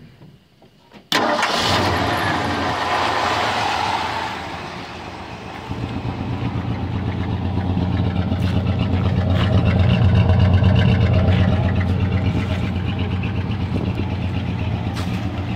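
A 1973 Ford F100's V8 engine starts up about a second in, runs loud and rough for a few seconds, then settles into a steady, rumbling idle.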